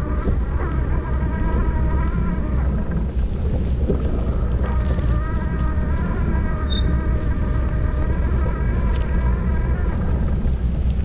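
Wind buffeting the microphone while riding, over the steady whine of an e-bike's assist motor. The motor whine cuts out about three seconds in and picks up again a second and a half later.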